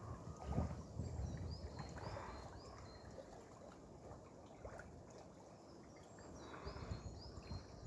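Water sloshing and splashing from a swimmer's slow strokes, most audible in the first couple of seconds and again near the end. Small birds chirp repeatedly in the background.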